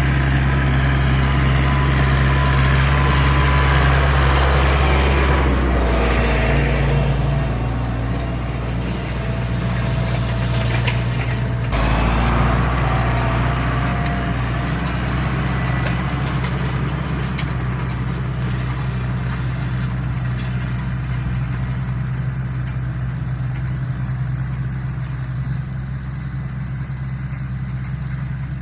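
Diesel engine of an LS Plus tractor running with a deep rumble ("roncando grosso") while pulling a heavy 14-disc, 28-inch disc harrow. It is a steady low note under load, shifting at about six and again about twelve seconds in, and a little quieter in the second half.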